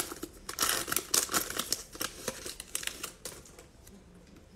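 Plastic foil wrapper of a trading-card pack crinkling and tearing as it is ripped open by hand: a quick run of crackles that thins out and stops about three seconds in.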